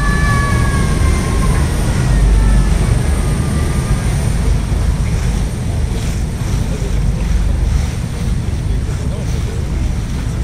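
Steady low rumble of a river tour boat underway, with wind and water noise. A wavering held tone glides slightly down and fades out in the first two seconds.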